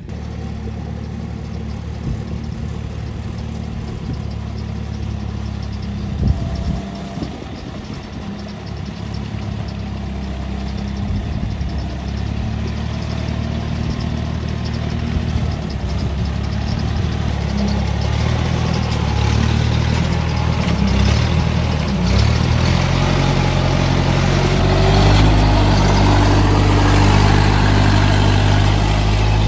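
Farm machinery engines running steadily in a flooded rice field: a Kubota rice combine harvester and a small tracked carrier hauling sacks of harvested rice. A few knocks come in the middle, and the engine grows louder over the last several seconds.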